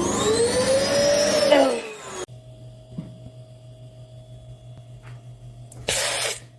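A cat giving one long drawn-out meow that rises and then falls in pitch, over a loud rushing noise; both cut off abruptly about two seconds in. A short burst of rushing noise follows near the end.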